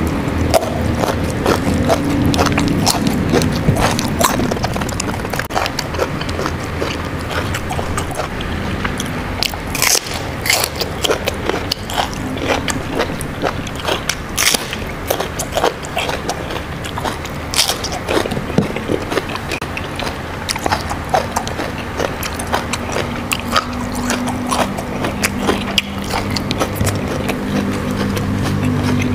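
A person chewing and crunching raw vegetables close to the microphone, with many sharp, irregular bites and crunches. A low steady hum sits in the background at the start and again near the end.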